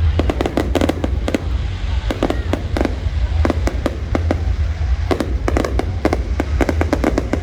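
Fireworks display: a rapid, irregular string of sharp bangs and cracks from bursting shells, over a constant deep rumble.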